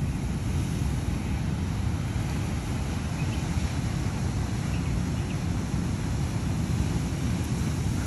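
Steady wind buffeting the microphone over the continuous wash of ocean surf on a rocky shore, a churning low rumble with no distinct events.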